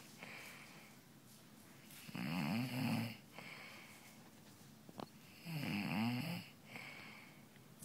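A sleeping person snoring loudly: two long snores, each about a second and about three and a half seconds apart. Each snore is followed by a softer breath.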